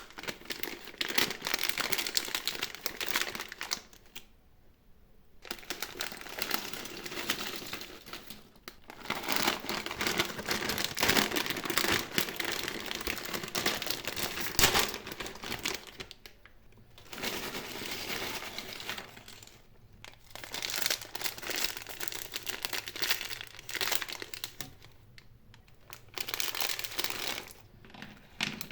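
Sweet and snack wrappers crinkling and tearing as packets are handled, opened and emptied, in bursts with a few short pauses between.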